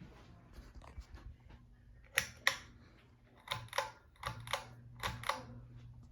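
Hampton Bay Glendale ceiling fan motor humming steadily while its pull-chain switch is clicked four times, each pull a quick double click, with the motor hum changing as the speed setting changes.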